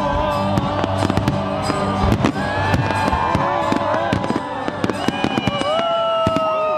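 Aerial fireworks going off in a dense barrage: a rapid, unbroken stream of bangs and crackles, with many whistles sliding up and down in pitch.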